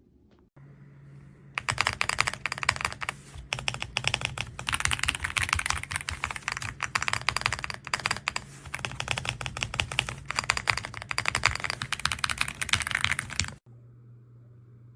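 AULA F99 mechanical keyboard with pre-lubed linear switches being typed on fast, in a dense run of keystrokes that starts about a second and a half in and stops suddenly near the end. A low steady hum runs beneath it.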